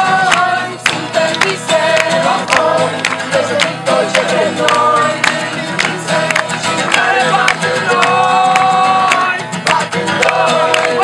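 A small group singing a song together to two strummed acoustic guitars.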